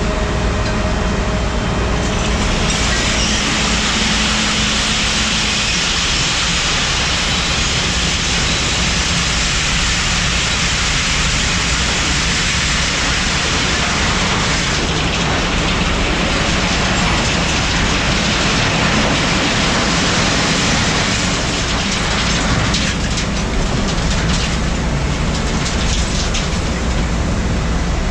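Diesel engine of a Peterbilt end dump truck running steadily while the trailer unloads a load of shred. A loud, steady rushing hiss comes in about two seconds in.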